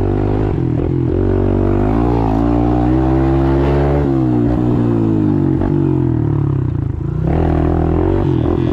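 Dirt bike engine running hard while being ridden, its pitch rising and falling as the throttle is worked, with a short drop about seven seconds in before it picks up again.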